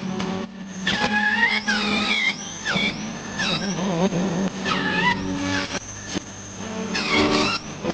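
Angle grinder running and carving, its high whine dropping in pitch each time the disc bites into the work and rising again as it eases off, over and over.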